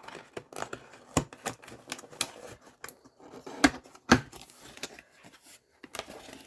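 Irregular small clicks and taps of packaging being handled, with two louder knocks about three and a half and four seconds in.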